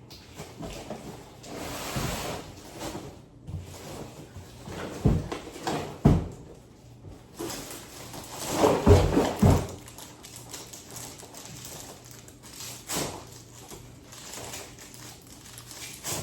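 Household handling noises from taking out the trash: knocks and thumps, one about five seconds in, one about six, and a cluster around nine seconds, with rustling in between.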